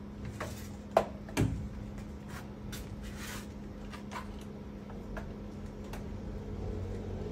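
Knocks and clicks of plastic and metal string-trimmer shafts and housings being handled and lifted off a rack. There is a sharp knock about a second in and another just after, then lighter scattered taps, over a steady low hum.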